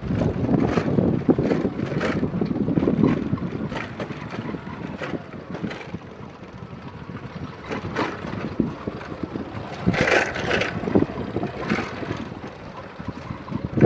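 Wind buffeting the microphone: a gusty rumble with scattered crackles and knocks, loudest in the first few seconds and again with a cluster of crackles about ten seconds in.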